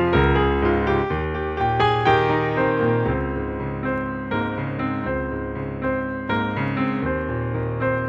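Background piano music, sustained notes and chords changing every second or so.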